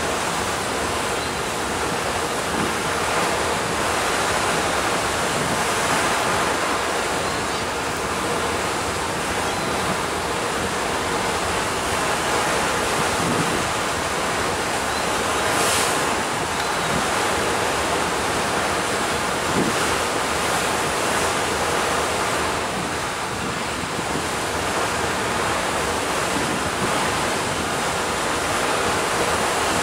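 Steady rush of wind buffeting the microphone over the wash of sea water along a moving ferry, with no engine tone standing out. There is a brief sharper hiss about halfway through.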